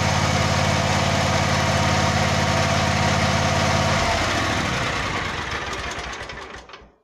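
John Deere X300 riding mower's V-twin engine running steadily with a new carburetor fitted to cure popping through the carburetor, no popping heard. About four seconds in the deep engine note stops and the remaining sound dies away.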